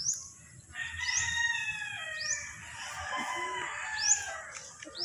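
A rooster crowing, one long drawn-out call starting about a second in and trailing off, with short high rising chirps of a small bird repeating every second or so.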